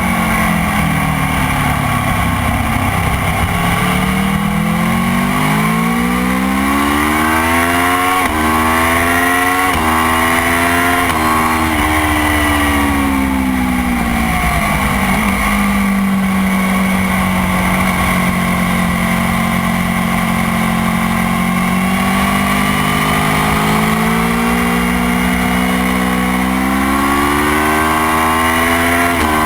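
Motorcycle engine at speed on a race track. It revs up through the gears with quick upshifts, drops away while slowing, holds a steady pitch for several seconds, then climbs again near the end.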